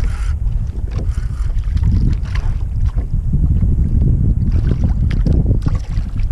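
Wind buffeting the microphone on a kayak at sea, with water lapping and a few small knocks against the hull.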